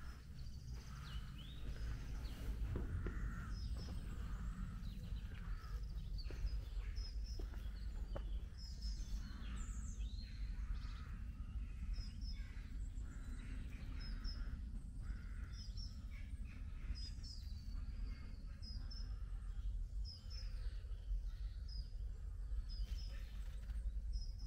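Birds singing in a dawn chorus, with short high chirps repeating every second or so, over a steady low rumble.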